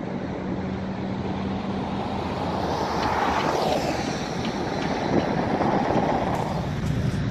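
Outdoor traffic noise with wind buffeting the microphone. A vehicle passes in the middle, its noise swelling and fading over a steady low hum.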